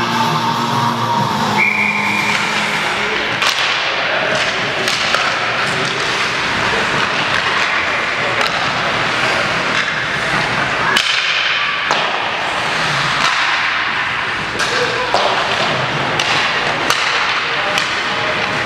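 Youth ice hockey play in an arena: skate blades scraping on the ice and sticks clacking on the puck and ice, with sharp knocks throughout, over the murmur of spectators' voices echoing in the rink.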